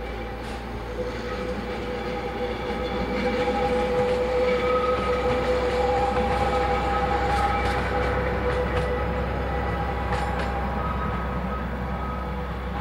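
Narrow-gauge train passing at low speed: a low rumble with a steady high whine, growing louder toward the middle and easing off near the end, with a few sharp clicks from the wheels on the rails.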